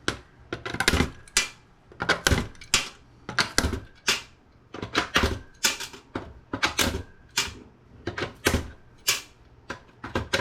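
Hand tools clicking and tapping against the circuit board of a network switch being taken apart for scrap: sharp metallic clicks with short ringing tails, in irregular clusters of several a second.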